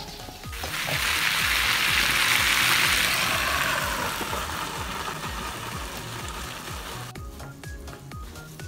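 Chicken and vegetables in a spicy gochujang sauce sizzling loudly in a wide pan. The sizzle swells up about half a second in, is loudest around two to three seconds, eases off, then cuts off suddenly about seven seconds in. Background music with a steady beat runs throughout.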